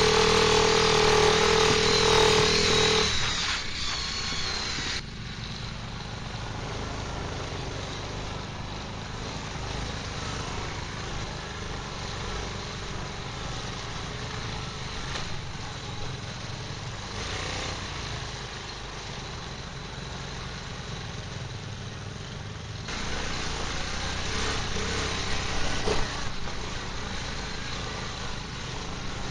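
Quad bike (ATV) engine running while riding a dirt track, with a loud, steady engine note for the first three seconds, then dropping to a quieter low rumble, and rising again near the end.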